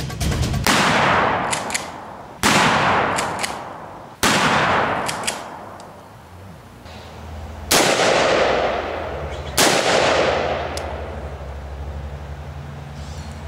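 Five gunshots, spaced one to three and a half seconds apart, each with a long echoing tail that fades over a second or more.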